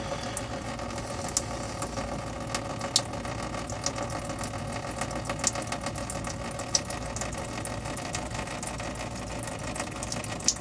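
Diesel fuel streaming out of the opened drain plug of a 2004 Ford F-250 6.0 diesel's fuel/water separator and splashing into a bucket, with scattered sharp drip ticks over a steady mechanical hum.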